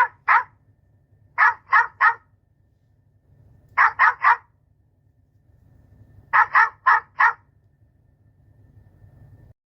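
Dog barking in quick runs of two to four sharp barks, with pauses of about a second and a half between runs.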